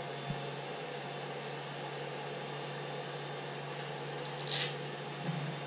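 Cooling fans in a Creality CR-10 3D printer's control box running with a steady hum, the printer just switched on. A brief rustle about four and a half seconds in.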